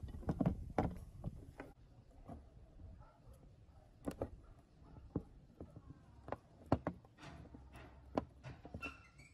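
Irregular light clicks and knocks of steel parts being handled as a toothed ratchet wheel is fitted by hand into the painted steel side plates of a ratchet tie-down strap buckle, with a brief ringing tone near the end.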